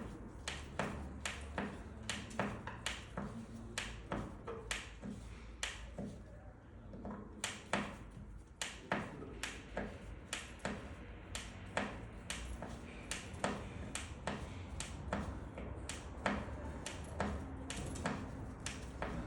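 Light, sharp clicks and taps repeating about two or three times a second, with a short pause about six seconds in: small parts being handled and worked by hand during the lamp's assembly.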